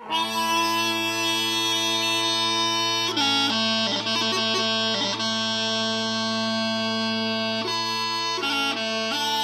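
Mouth-blown Piper's Choice Scottish smallpipes starting up: the drones hold a steady low hum while the chanter sounds over them, holding long notes and shifting through a few quick note changes twice.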